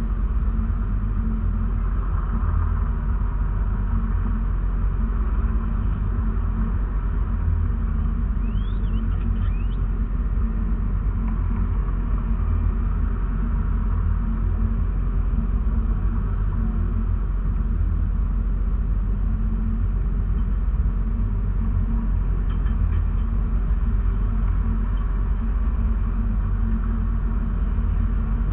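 Steady low rumble of a car idling while stopped in traffic, heard from inside the cabin. A few faint short chirps come about nine seconds in.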